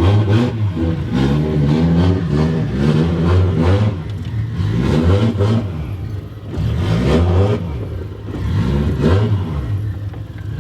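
Car engine running on E85 fuel, revved repeatedly while still cold: the pitch climbs and falls about six times in a row.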